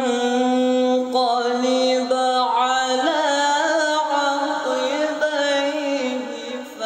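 Teenage male voice reciting the Quran in melodic tilawah style: a long held note, then a step up in pitch about three seconds in with wavering ornaments, easing off near the end. The voice has changed with adolescence and is regaining its quality, though not yet fully.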